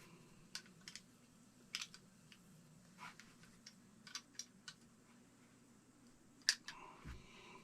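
Scattered light clicks and taps as small parts of a Coleman 220F lantern are handled and fitted together, with a sharper click about six and a half seconds in and a soft low thump just after.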